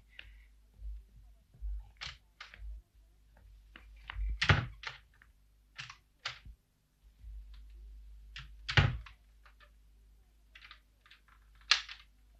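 Wooden panelled double doors being handled: an irregular series of sharp knocks and clicks, with two louder thuds about four and a half and nine seconds in.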